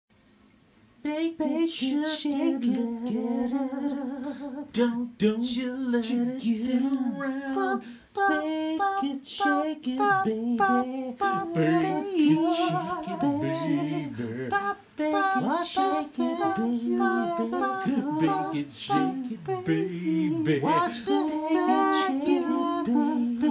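One voice singing a cappella without instruments, a wordless jingle-style tune hummed and crooned with a wavering, vibrato-laden pitch. It starts about a second in, with a few brief breaths between phrases.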